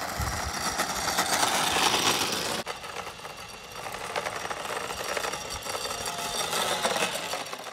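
Razor E90 electric scooter riding over asphalt, its small motor whining and wheels rolling, first powered by a 20V DeWalt lithium battery; about two and a half seconds in the sound cuts abruptly to a second, somewhat quieter ride on its original 12V lead-acid battery.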